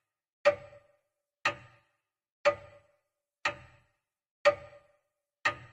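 Countdown timer sound effect ticking once a second, six sharp clock-like ticks, each ringing briefly.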